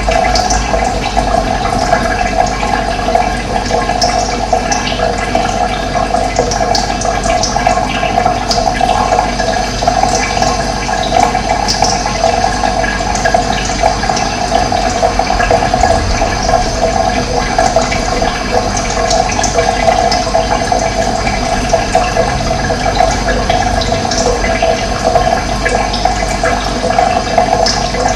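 Steady rush of running water, with brief high bird chirps here and there.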